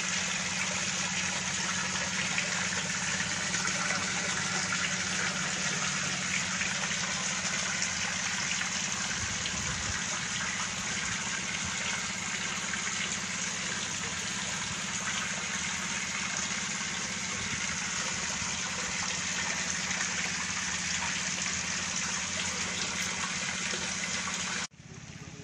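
Steady gushing of a stream of water pouring into shallow water crowded with carp, with a steady low hum underneath. It cuts off sharply near the end, giving way to a quieter background.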